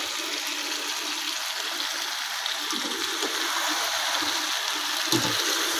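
Sliced potatoes and tomatoes sizzling steadily in oil in a wok, stirred with a wooden spatula.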